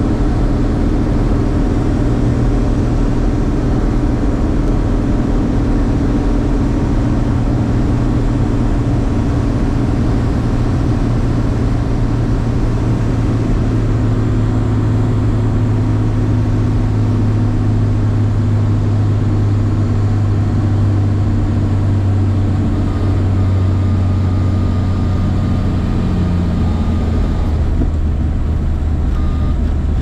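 Bellanca Turbo Viking's engine and propeller droning steadily, heard from inside the cabin on final approach. The engine note slowly sinks through the second half as power is brought back for landing, and near the end the rushing air noise drops away as the plane rolls along the runway.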